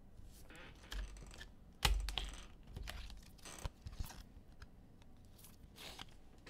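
Scattered light clicks and taps from hands working at a desk, with a louder knock about two seconds in.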